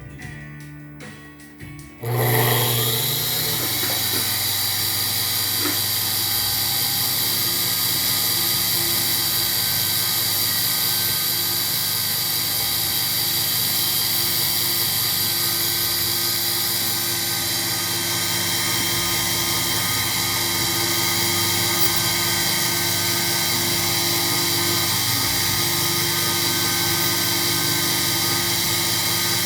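Small benchtop milling machine spindle (2010 Sherline mill) starting up suddenly about two seconds in. It rises to speed, then runs steadily at high speed with a loud, even whine.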